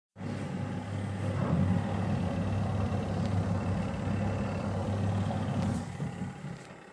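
Leisurewize portable washing machine running: a steady motor hum with a churning wash noise, which drops away near the end.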